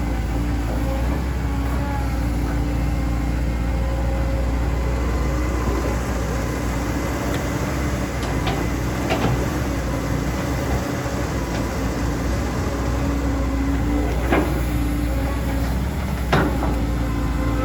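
Diesel engine of a CAT 320D2 GC excavator running steadily while it works, with a few sharp clanks, the loudest near the end.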